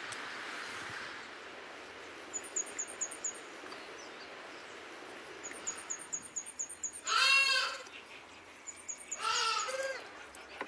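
Livestock bleating twice, a few seconds apart; these two calls are the loudest sounds. Between and before them, a small bird gives three runs of quick, very high chirps.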